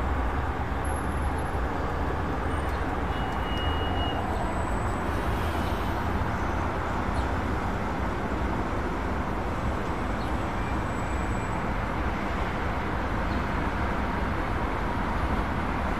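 Steady road traffic noise from a busy city intersection: a constant rumble of car engines and tyres with no single vehicle standing out.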